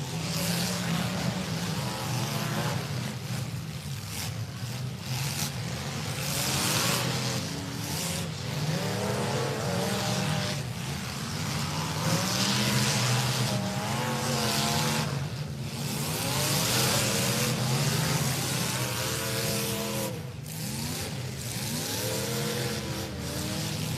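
Several demolition derby cars' engines revving hard and unevenly as they drive and ram, the pitch rising and falling again and again, with recurring hissing rushes of noise over the top.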